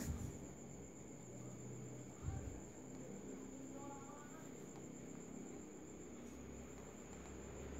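Steady high-pitched insect trill over a low background hum, with a dull thump at the start and another about two seconds in.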